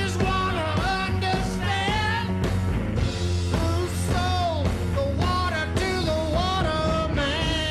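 Rockabilly band playing live, an instrumental stretch with electric guitar, double bass and drums; the lead line bends up and down in pitch.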